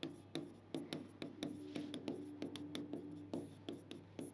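Chalk writing on a chalkboard: a quick run of taps and short scratches as letters are stroked out.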